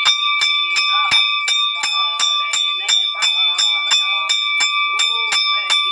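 A temple bell rung rapidly during a puja, about four strikes a second, each strike ringing on the same clear pitches, with a voice chanting beneath it.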